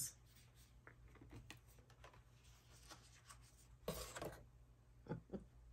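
Near silence with faint handling noises from an eyeshadow palette and its packaging being handled: scattered small clicks and rustles, with a brief louder rustle about four seconds in and two short ticks near the end.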